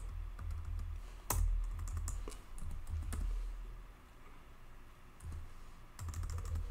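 Computer keyboard keystrokes as a short command is typed: a few scattered key clicks, then a quick run of them near the end, over a low steady hum.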